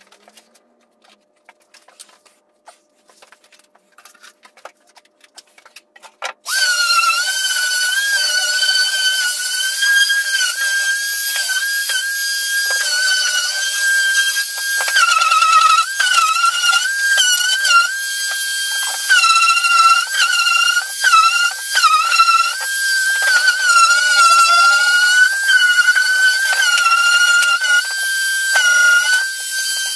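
Handheld electric sander sanding the wooden stair box. It starts about six seconds in, after a few faint clicks, then runs as a steady motor whine over a hiss, its pitch wavering and dipping now and then.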